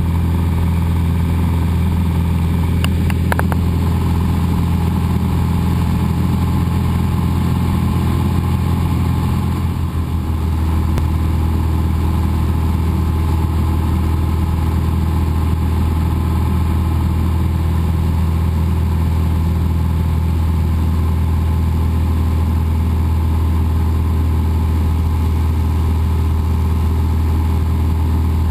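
Cessna 172's piston engine and propeller droning steadily in flight, with a short dip in loudness about ten seconds in.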